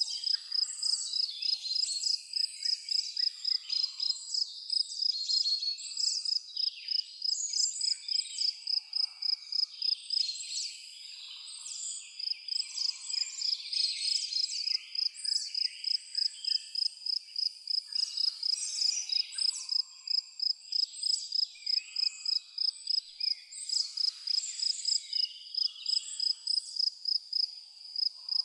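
A cricket chirping in a steady, even rhythm of about three high chirps a second, pausing briefly about eleven seconds in, with birds chirping and twittering over it.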